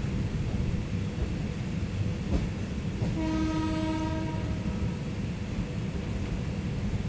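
WAP-5 electric locomotive horn sounding one steady blast of just over a second, about three seconds in. Under it runs the constant low rumble of the moving passenger train.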